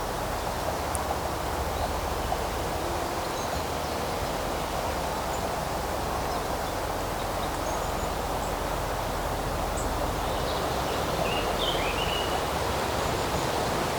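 Steady outdoor woodland ambience: an even rushing noise like wind through the trees, with a few faint bird chirps about three-quarters of the way through.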